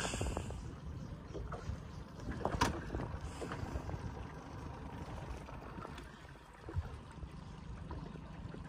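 Low, uneven rumble of a small fishing boat on the river, with a few light knocks and one sharp click about two and a half seconds in.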